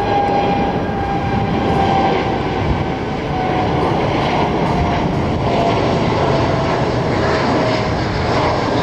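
A Boeing 787 Dreamliner's jet engines at takeoff thrust as it climbs away after liftoff. It is a steady, loud roar with a whine that slides slowly down in pitch.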